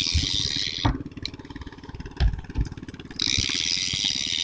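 A fishing boat's engine running steadily with an even low pulsing, joined twice by a higher rasping whirr from the fishing reel as the angler works a hooked mackerel, with a couple of short knocks in between.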